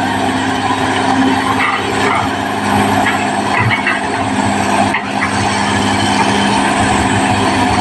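Caterpillar D6R XL bulldozer's diesel engine running steadily at working speed. A few short, higher-pitched squeaks or scrapes from the machine come through in the first half.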